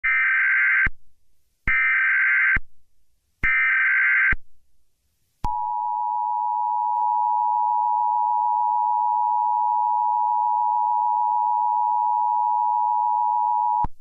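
Emergency Alert System header tones: three short bursts of harsh digital SAME data, then the steady two-tone EAS attention signal for about eight seconds, cutting off sharply near the end. Together they mark the start of an emergency alert broadcast.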